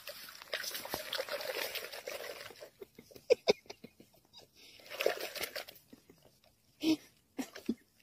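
Cat lapping water from inside a plastic tub: soft wet laps and slurps in scattered clusters, with faint sloshing of the water.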